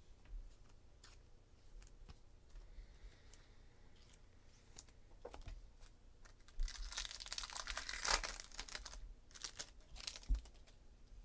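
Foil wrapper of a Topps High Tek baseball card pack being torn open and crinkled, starting about six and a half seconds in and lasting a few seconds, with a couple of shorter crinkles after it. Before that, only a few faint clicks.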